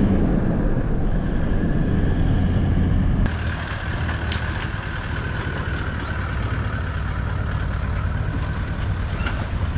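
Vehicle engine running steadily, a low hum. About three seconds in it changes abruptly and goes on a little quieter.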